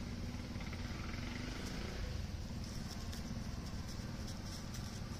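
Steady low hum of a vehicle engine running, with a few faint high ticks in the second half.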